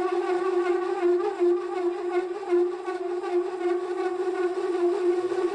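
Lathe parting tool chattering as it cuts a fin groove in a cast iron cylinder: a loud, steady, slightly wavering squeal that sounds pretty bad. The squeal is the sign of the tool vibrating in the cut.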